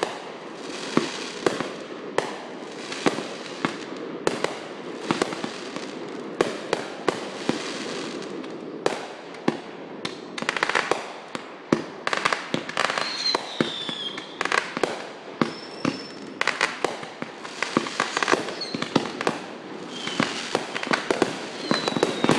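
Fireworks going off in quick succession: sharp pops and bangs over steady crackling, with a few short falling whistles about halfway through.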